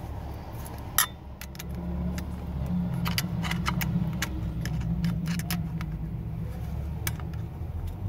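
Small metallic clicks and ticks of a screwdriver and loose parts inside a KABA 3000-series push-button combination lock being taken apart, with one sharper click about a second in. A low steady rumble runs underneath and grows louder after a second or so.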